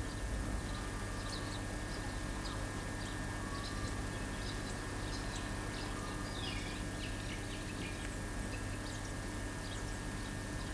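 Scattered short bird chirps over a steady hum and tape hiss.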